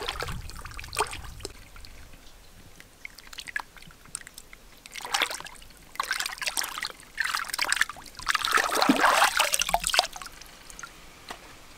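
A whole fish being washed by hand in open water: splashing and sloshing as it is rubbed and swished through the water. Light scattered splashes at first, then longer bursts that build to the loudest, most continuous splashing about two-thirds through before dying down.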